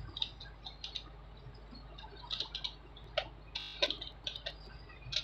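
Computer keyboard typing and mouse clicks: a scatter of light, irregular clicks, with a short quick rattle of clicks about three and a half seconds in, over a faint steady low hum.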